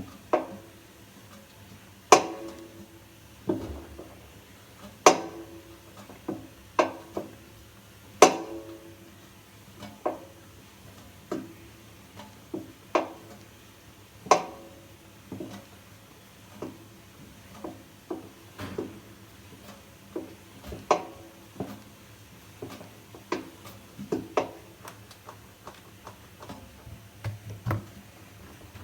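Samsung washing machine drum knocking: irregular sharp knocks, about one a second, each with a short metallic ring, the loudest in the first ten seconds. The knock began after the drum's spider (cross-piece) was replaced, and the owner wonders whether the bearings are to blame.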